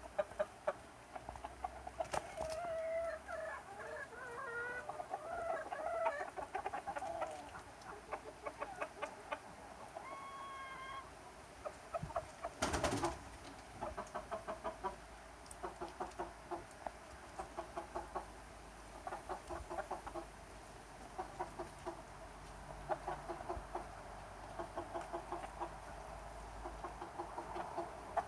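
A flock of chickens clucking, with many short repeated clucks and a few longer pitched calls. A brief rustling burst of noise comes about halfway through.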